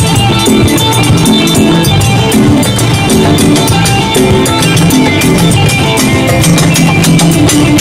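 Live ensemble drumming: a stick-played, rope-tuned barrel drum on a stand and hand drums keep up a dense, driving rhythm, with electric guitar playing over it.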